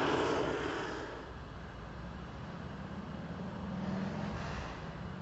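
Gas torch flame running with a steady roar while heating the steel casing pipe, falling away about a second in to a fainter steady rush.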